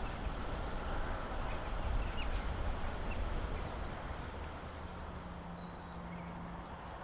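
Outdoor countryside ambience: a low wind rumble on the microphone with a few faint bird chirps, and a brief low steady hum about five seconds in.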